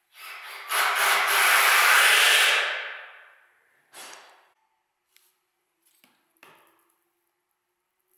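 A long scraping rub of wood against a hard surface, lasting about three seconds and fading out. A shorter, softer scrape follows about a second later, then a few light knocks.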